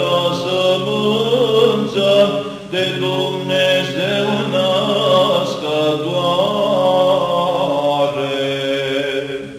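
Romanian Orthodox Byzantine chant in the fourth tone: a long, drawn-out melodic line sung over a steady held drone (ison). The phrase tapers off at the very end.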